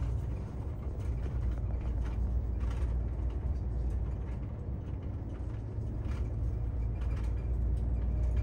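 Inside a moving bus: the steady low rumble of the bus running on the road, with light rattles and clicks from the cabin now and then.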